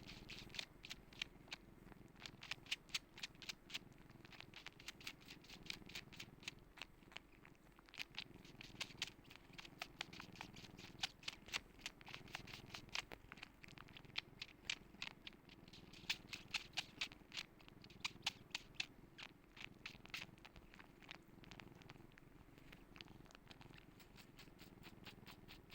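A cat purring steadily and faintly, with clusters of quick, sharp clicks over the purr.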